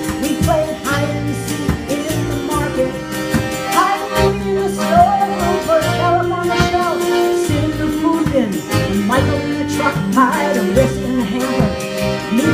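Mountain dulcimer strummed with a steady drone under the melody, and a woman's voice singing over it.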